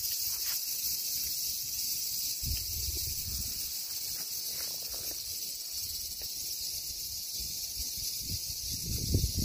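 Steady high-pitched insect chorus from the surrounding trees, with a few low thumps, one about two and a half seconds in and a louder one near the end.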